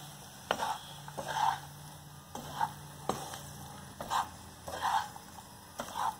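A wooden spatula stirs cooked rice around a pan in repeated scraping strokes, about one a second. A few light knocks of the spatula against the pan come along with the strokes.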